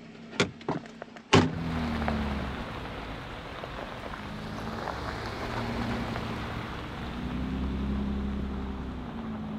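A few clicks and a loud slam as a Jeep door is pulled shut, then Jeep Wranglers driving on a gravel road: engine rumble and tyre noise on the gravel, swelling a few times as they pass.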